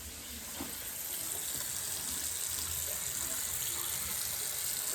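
Bathroom sink faucet running, water pouring steadily into the basin; the flow grows a little louder about a second in.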